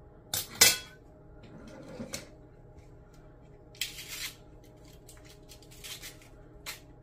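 Cutlery clinks twice against a dinner plate about half a second in. Around four seconds in, a fortune cookie cracks as it is broken open by hand, followed by a few small crackles as it is pulled apart.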